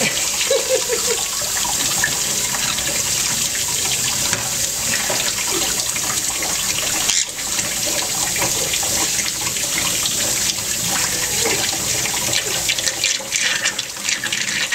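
Water running steadily from a tap into a sink, with a brief drop in level about seven seconds in.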